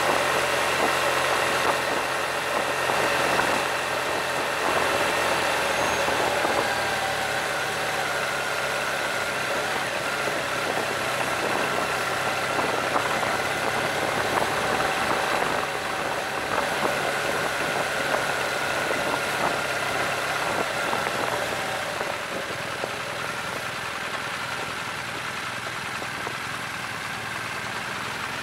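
Motorcycle engine running under way with wind and road noise, the engine note wandering slightly in pitch and getting a little quieter in the last several seconds as the bike slows.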